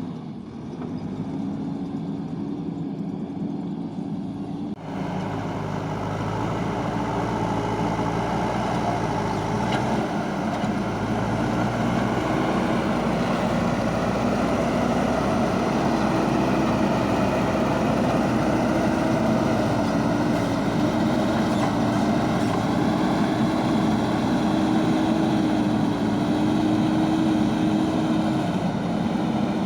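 Diesel engine of a JCB backhoe loader running steadily under work, its pitch rising and falling slightly. About five seconds in the sound changes abruptly and becomes louder and noisier.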